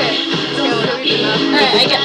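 A pop song playing, with sung vocals over the music.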